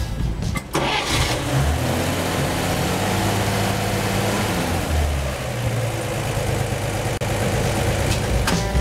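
1949 Chevy 3100 truck's straight-six engine starting within the first second and running at a fast idle, then kicked down from high idle to a somewhat lower fast idle.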